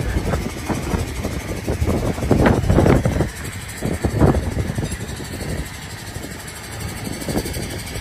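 A large engine running steadily, with irregular knocks and clanks over the first four seconds or so; after that it is quieter and more even.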